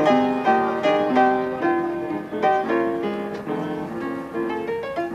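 Instrumental music, a melody of distinct notes changing a few times a second over held tones.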